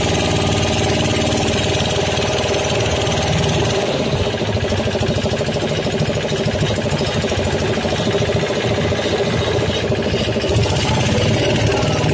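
Small engine of a long-tail boat motor running steadily, with a rapid knocking beat.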